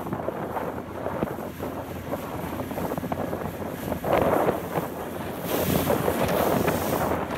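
Wind buffeting the microphone in gusts, over choppy sea water around a small open boat. The gusts swell about four seconds in and again from about five and a half seconds.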